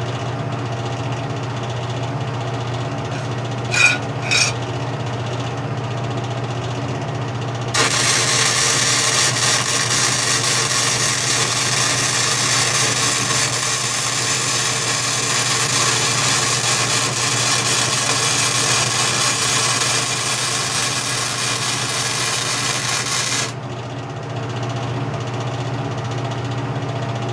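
Century FC90 flux-core wire-feed welder laying a test bead: the arc crackles and hisses steadily for about fifteen seconds, starting several seconds in and cutting off abruptly, at a raised setting of 8 on voltage and 7 on wire feed speed. A steady low hum from the welder runs underneath, with two brief sharp sounds about four seconds in.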